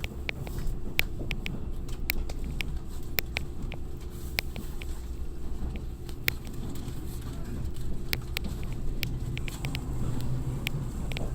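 Interior running noise of an Odakyu 50000-series VSE Romancecar: a steady low rumble with many irregular sharp clicks and ticks.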